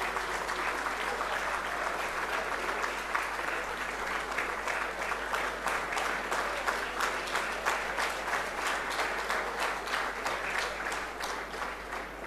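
A large audience applauding steadily, many hands clapping at once; the clapping eases off near the end.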